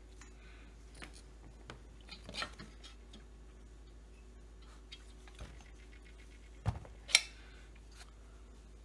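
Scattered clicks and knocks of plastic and metal chainsaw parts being handled and set down: a few light taps, then a dull thump about two-thirds of the way through, followed by a sharp click, the loudest sound.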